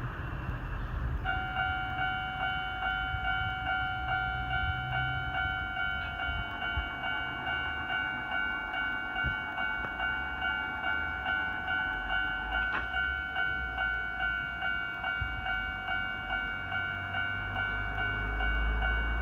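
Japanese railway level-crossing warning alarm starts about a second in and rings on steadily in evenly repeating dings, about two a second, signalling an approaching train. A low rumble underneath grows louder near the end.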